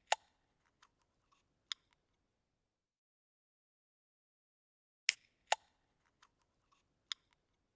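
Sharp clicks: one loud click at the start, a few faint ones, and another loud click under two seconds in. The same pattern comes back about five seconds in, two loud clicks then fainter ones. Between the two groups there is dead silence.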